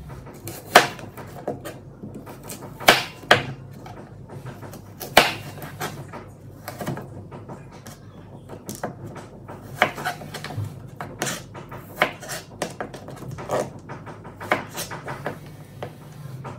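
A knife cutting an apple into wedges and trimming out the core on a plastic cutting board: irregular crisp cuts and knocks of the blade against the board. The loudest knocks come about a second in, near three seconds and about five seconds in.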